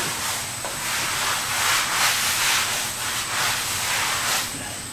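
Rustling and rubbing from hands handling things close to the microphone, rising and falling in several swells.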